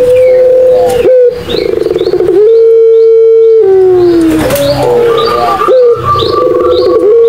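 Puter pelung dove cooing: long coos held on one pitch that slide down at their ends, alternating with rolling, warbling stretches.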